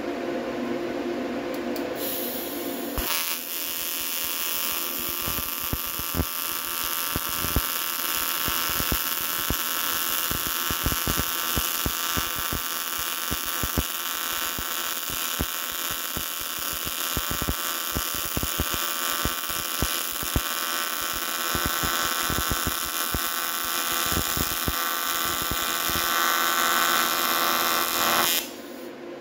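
An electric welding arc on preheated aluminum: a steady, high buzz with crackling that starts about three seconds in and cuts off shortly before the end.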